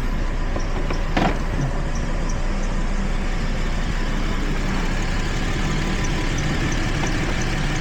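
2012 Jeep Liberty's V6 engine idling steadily, now running without a misfire. A light click about a second in.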